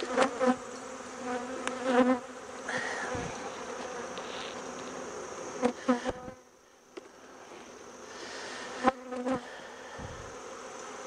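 Honeybees buzzing steadily around an opened hive, a low even hum. A few short knocks come as the wooden hive box and frames are set in place and worked, near the start, about two seconds in, around six seconds and around nine seconds.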